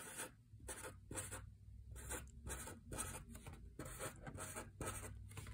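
Marker tip rubbing on paper in short quick strokes, about three a second, as small circles are drawn.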